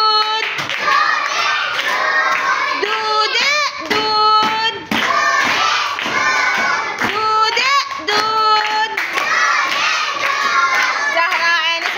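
A class of young schoolgirls clapping their hands and singing a chant together.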